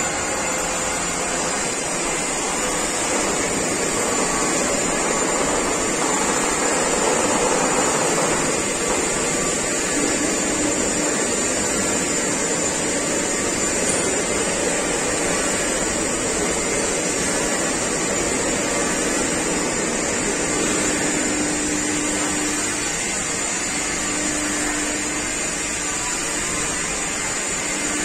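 Steady machinery noise from a large CNC hydraulic press brake, with its hydraulics running as it bends heavy steel plate, and no distinct knocks or clangs. A faint tone comes and goes in the second half.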